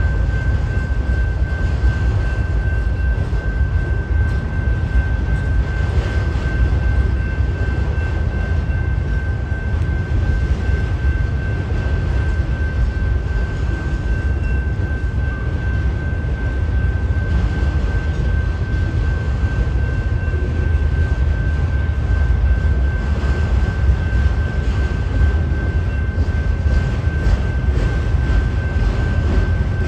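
Freight train cars, autoracks and intermodal well cars, rolling steadily past: a deep, even rumble of wheels on rail, with a thin steady high tone over it.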